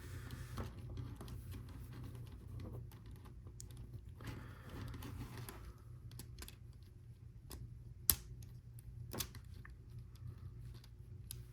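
Lego Technic plastic pieces clicking and rattling as they are handled and fitted together, in irregular light clicks, with a sharper snap about eight seconds in and another about a second later, over a steady low hum.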